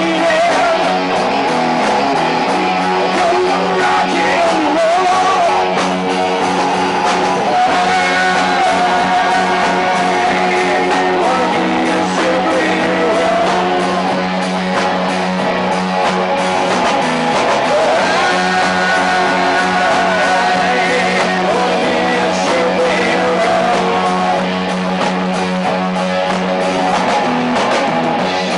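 Rock band playing with electric guitars and a sung lead vocal over a steady low note.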